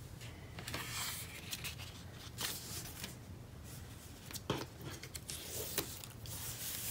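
Card stock being handled and pressed into place on a work surface: scattered soft rustles, rubs and light taps of paper, over a low steady hum.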